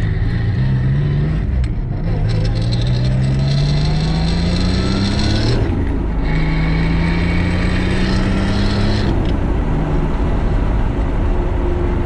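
Turbocharged Holden VR Commodore 3.8-litre V6 accelerating hard under boost. The revs climb steadily, break off briefly at a gear change about six seconds in, and pull again until the throttle lifts about nine seconds in. A high whine rides over the engine during both pulls.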